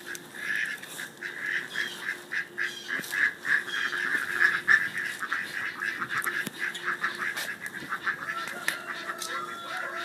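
Garden poultry calling continuously: a dense run of rapid, harsh repeated calls, with a few longer drawn-out calls near the end.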